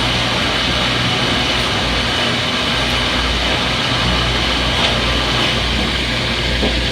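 Front-load washing machine in its spin cycle: the drum runs steadily with a low rumble that swells and fades, over a constant high whine.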